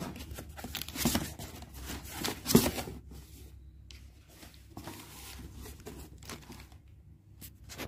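Cardboard box flaps being handled and pulled open, with rasping scrapes of cardboard and a rustle of plastic wrapping. The two loudest scrapes come about one second and two and a half seconds in, followed by softer scrapes and clicks.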